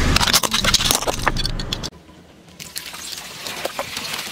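Small plastic 2x2 puzzle cubes cracking and clattering apart under a car tyre, a dense run of sharp snaps. It stops abruptly about two seconds in, and quieter scattered crackles follow.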